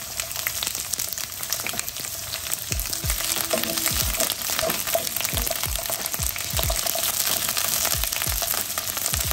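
Asparagus spears sizzling and crackling steadily in avocado oil in a nonstick frying pan, while a wooden spatula pushes them around, giving several short dull bumps.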